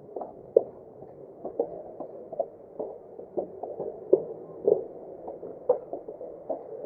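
Footsteps going down concrete stairs, about two steps a second, over a steady background hum.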